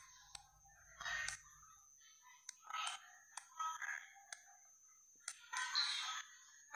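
Scattered faint clicks, about five, with a few short quiet sounds in between.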